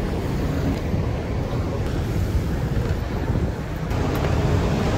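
Steady low rumble of outdoor street noise, with wind buffeting the phone's microphone.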